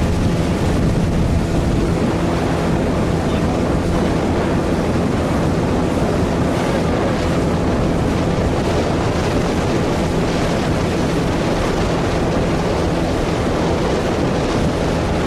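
Speedboat engine running steadily at speed, with wind buffeting the microphone and water rushing past the hull.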